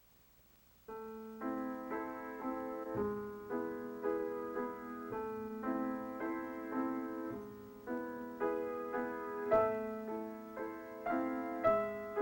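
Solo piano playing a slow, gentle melody, starting about a second in, with notes struck roughly every half second.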